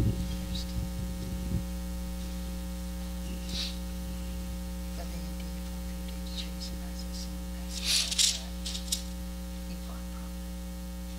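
Steady electrical mains hum with a buzz of several evenly spaced tones, and a few faint brief rustling sounds, the most noticeable about eight seconds in.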